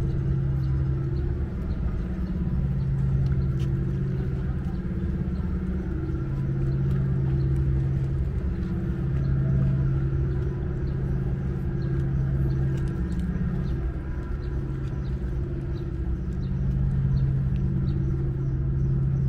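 Steady low engine hum that swells and fades every few seconds, with faint scattered ticks over it.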